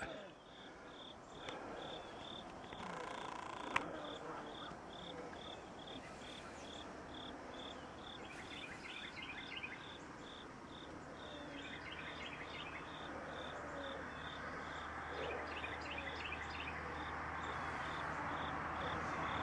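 Crickets chirping in an even rhythm of about two chirps a second, with scattered small bird twitters and a low steady hum beneath.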